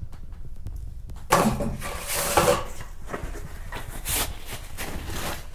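A paper towel rubbed over the face right at the microphone, rustling in a long burst about a second in and then in several shorter bursts, over a low steady hum.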